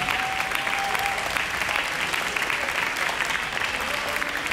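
Audience applauding at the end of a dance heat, a dense and steady clapping.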